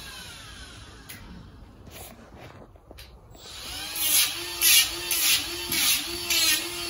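Electric hoof-trimming power tool working on a horse's hoof: a faint whine at first, then from about four seconds in a steady motor hum with rasping strokes about every half second.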